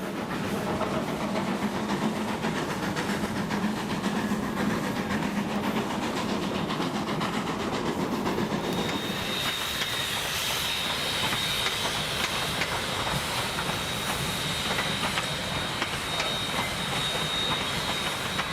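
Vintage steam train running, with steam hiss and a fast, regular clatter of wheels and motion. About halfway through, a thin, steady high tone joins in.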